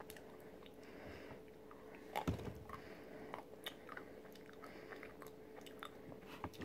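A person quietly chewing a dark chocolate thin with crunchy freeze-dried strawberry pieces in it, with scattered small mouth clicks and one sharper crunch about two seconds in.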